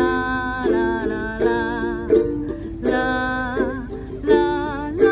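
Two ukuleles strummed together, accompanying a woman singing a slow melody whose notes are each held for about half a second to a second.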